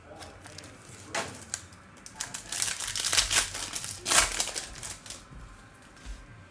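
Sports-card mini box and its packaging being torn open and handled, with irregular crinkling and rustling that is densest in the middle and loudest a little after four seconds in.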